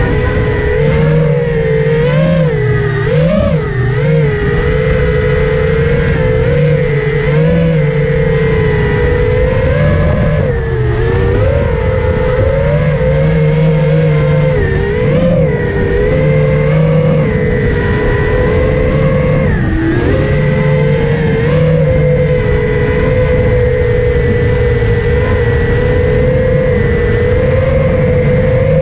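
Stingy V2 FPV quadcopter's brushless motors and propellers whining in flight, heard close from the onboard GoPro. The pitch wavers up and down with the throttle and dips sharply about twenty seconds in before climbing back.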